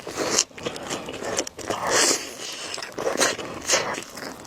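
Close-up eating sounds of noodles being bitten and chewed, in several short noisy bursts.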